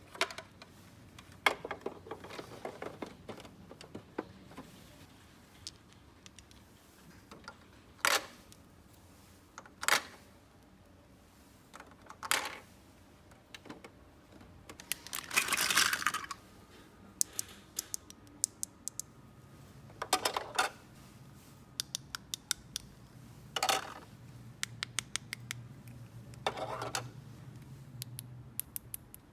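Small plastic toy pieces and their packaging being handled up close: scattered sharp clicks and taps, with a longer rustle about halfway through.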